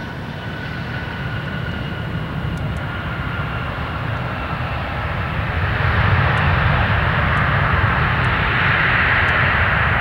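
Airbus A320 jet engines during landing rollout: a faint whine slowly dropping in pitch, then, about halfway through, a louder rising rush with a deep rumble that stays up, typical of reverse thrust being applied to slow the aircraft.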